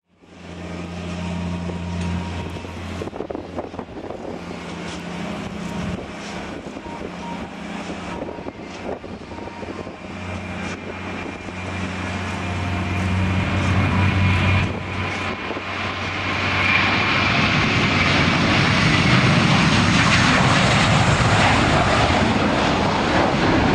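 Jet engines of a Finnair Airbus A320-family twinjet at takeoff power during the takeoff roll: a steady rumble with a high fan whine. It grows louder over the second half as the plane draws closer.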